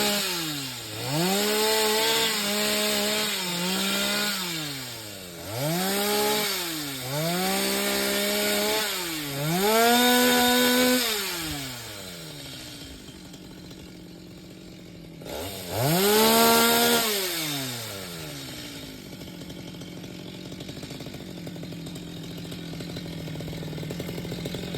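Two-stroke Stihl chainsaw revved hard in four runs, its pitch rising and falling each time, and dropping back to a lower, steady running note between runs and through the last few seconds.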